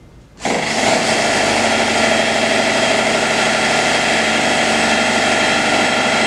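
A cordless drill motor starts abruptly about half a second in and runs steadily, driving a spring-mounted wooden mock-up that simulates the vibration of an electric jigsaw.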